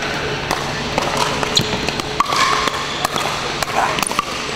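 Pickleball rally: a hard paddle striking a plastic perforated ball, heard as a string of sharp, irregular pops and clicks a fraction of a second apart, mixed with clicks from play on neighbouring courts, over the echoing background of a large sports hall.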